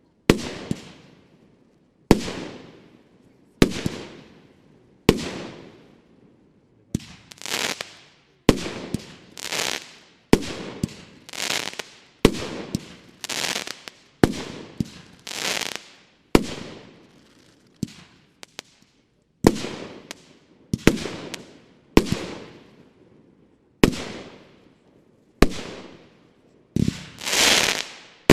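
TNT Dragon Fire, a 25-shot 30 mm firework battery, firing shot after shot at about one every one and a half seconds. Each shot is a sharp bang that trails off, with a swelling hiss before a few of them.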